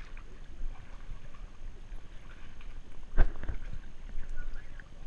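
Pool water sloshing and lapping against a waterproof action camera held at the surface, with one sharp thump a little over three seconds in.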